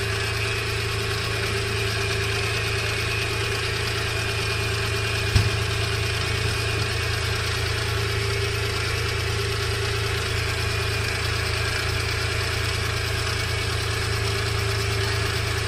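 Suzuki Multicab engine idling steadily, running again now that the cut high-tension wire behind its hard starting has been replaced. A single short knock about five seconds in.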